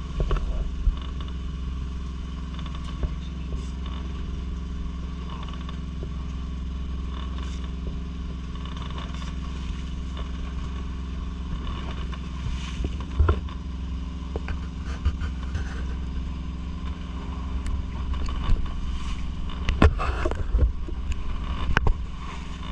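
Steady low hum of an engine running aboard a fishing boat, with scattered short knocks, clicks and scrapes of fishing gear and handling on deck, growing busier near the end.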